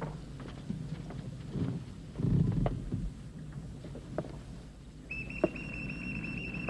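Knocks and movement on a wooden ship's deck over a low rumble, loudest just after two seconds in. About five seconds in, a steady high-pitched whistle begins and holds.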